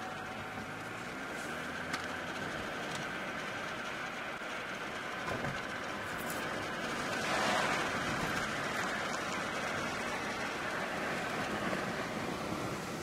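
Steady road and tyre noise of a car driving, heard inside the cabin, swelling for a moment around the middle.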